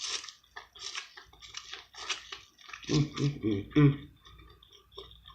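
Close-miked chewing with repeated crisp crunches, a mouthful of seafood being eaten. A short hum of voice comes about three seconds in.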